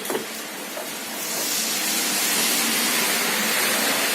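Steady hiss of white-noise static from an LCD TV's speaker, coming up about a second in, which shows that the repaired set's sound is working again.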